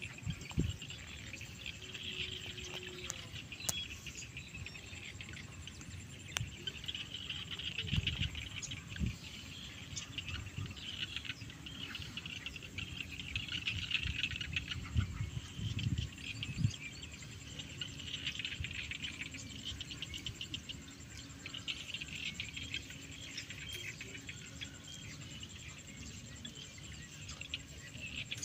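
Insects chirping in a rice field, a rapid pulsing trill that swells and fades every few seconds. Now and then wind gusts rumble on the microphone.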